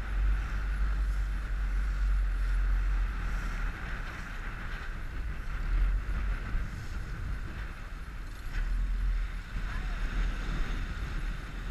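Wind buffeting the microphone over the steady noise of a small inflatable motorboat under way through choppy water.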